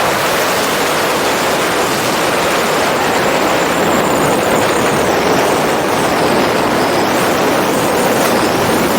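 Steady rushing noise of a DJI FPV drone in fast flight: propeller noise and airflow over the mounted camera's microphone, with a faint high whine that wavers in pitch.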